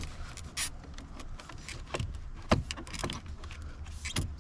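Plastic dashboard bezel being worked back into place by hand: scattered light clicks and knocks of the trim and its clips, the loudest knock about two and a half seconds in.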